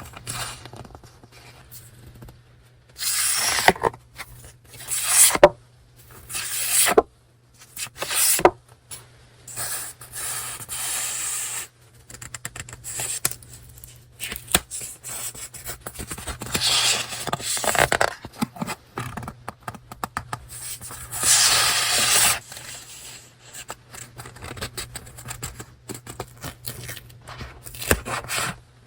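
Paper and packaging being handled close up: rustling, crinkling and scraping in a series of short bursts with brief pauses between them.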